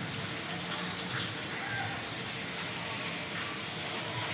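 Steady rain falling on a wet brick-paved yard and puddles, with a constant hiss and scattered drop ticks.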